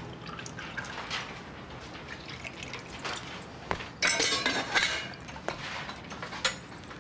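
Tea pouring from a stainless-steel teapot into a glass, with small clinks of glass and crockery. About four seconds in comes a louder clatter of metal and glass from the teapot and dishes, followed by a few sharp clinks.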